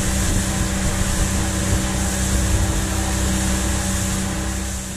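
Evinrude 90 two-stroke outboard motor running steadily at speed, a constant drone, with wind and rushing wake water over it.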